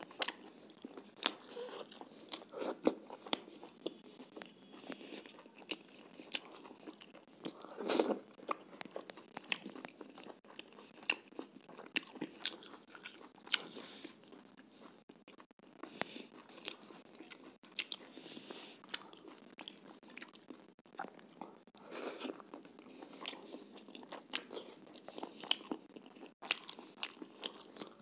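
Chewing and mouth sounds of a person eating roti and chicken curry by hand: irregular smacks and clicks, with a louder bite about eight seconds in.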